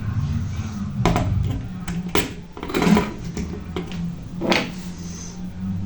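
About four sharp knocks and clatters of hard objects being handled, spread over a few seconds, above a steady low hum.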